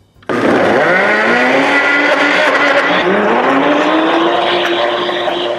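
Countertop blender motor switched on and spinning up, its pitch rising, then running on high while it grinds frozen banana chunks with coconut milk. The pitch dips and climbs again about three seconds in, then holds steady.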